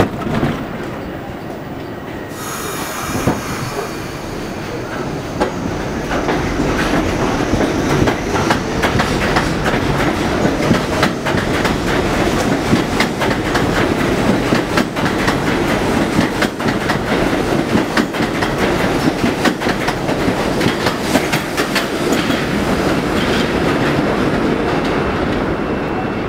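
Bombardier R62A subway train pulling out of an elevated station. Its running noise starts up about two seconds in and builds as the cars gather speed past the platform. It then holds steady, with the wheels clicking rapidly over the rail joints.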